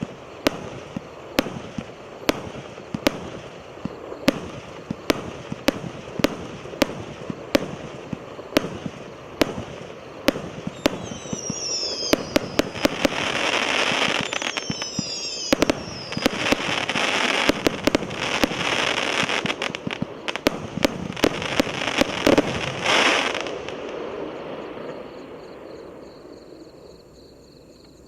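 A 100-shot fireworks cake ('Sevastopol' battery) firing: sharp launch reports about two a second, then a dense crackling finale with a few falling whistles. The finale stops abruptly, leaving fading crackle.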